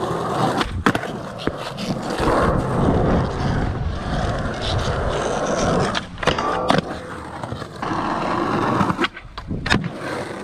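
Skateboard wheels rolling over concrete, with several sharp clacks of the board popping and landing. A quick run of rattling clicks comes about six seconds in.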